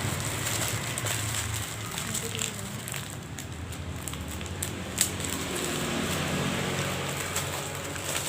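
Plastic packaging crinkling and crackling as a binder is unwrapped and handled, with one sharp click about five seconds in.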